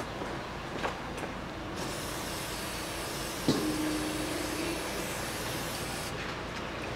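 Aerosol cleaner spray hissing in one long spray from about two seconds in until near the end, washing spilled engine oil off the underside of the engine. A short knock about three and a half seconds in, followed by a brief steady ringing tone.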